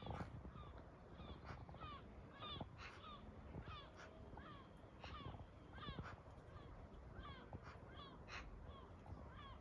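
Eurasian magpies calling: a faint, continuous series of short squeaky and harsh chattering notes, about two a second.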